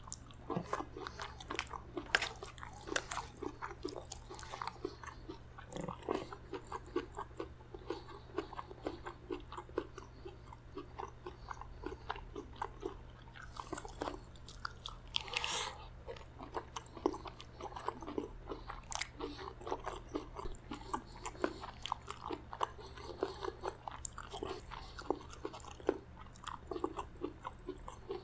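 Close-miked chewing and biting of spicy chicken gizzard curry with rice and lettuce salad: a continual run of wet mouth clicks and crunches, with a spoon now and then against the steel plate.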